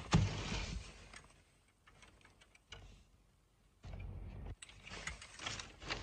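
Kyocera 4002i copier powering up: scattered clicks, then its motors and fans start a steady low hum about four seconds in. A loud knock and rustle comes right at the start.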